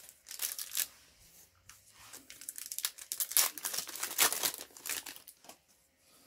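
Foil Yu-Gi-Oh booster pack wrapper crinkling and tearing as it is handled and opened, in a run of short crackly bursts that are loudest from about three to four and a half seconds in.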